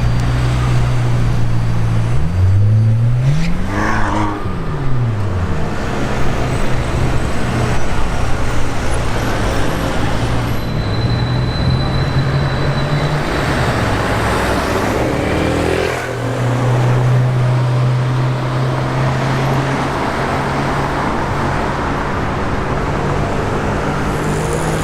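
Car engines in street traffic, with a steady low engine hum throughout. About three seconds in, one engine revs up and falls back. Past the middle, an engine climbs in pitch as it accelerates, then drops away suddenly.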